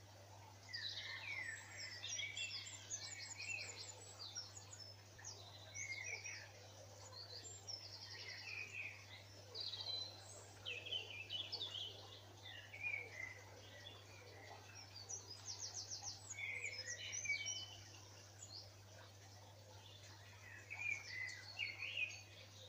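Dawn chorus: several songbirds singing at once, with fast trills, chirps and gliding notes, over a steady low hum.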